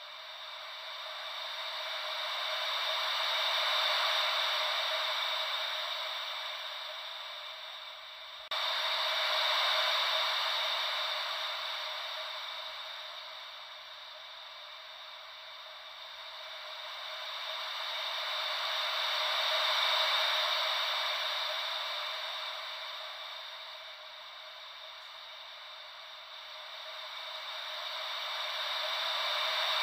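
Ocean-wave white noise: a steady hiss with no low rumble, swelling and fading slowly about every ten seconds like waves washing in. About eight seconds in it jumps suddenly louder.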